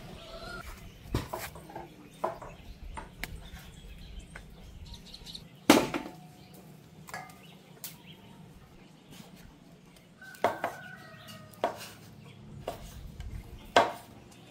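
Intermittent kitchen clatter of pots and utensils: scattered sharp knocks and clinks, the loudest about six seconds in, with faint bird calls in the background.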